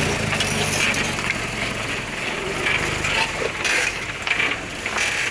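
Old sand-hauling truck rattling and creaking as it works down a rough track, with irregular clanks from the body and a low engine hum that fades after about two seconds.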